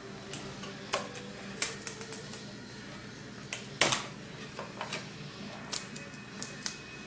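Paper and sticky tape being handled and pressed down: irregular light taps and crinkles, the loudest a little before halfway.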